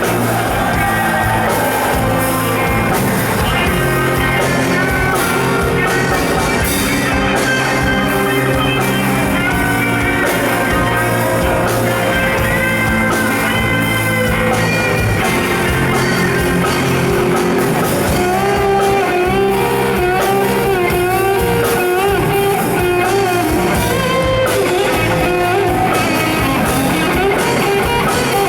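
A rock band playing an instrumental passage, with guitar carrying a wavering, bending lead melody over bass and drums.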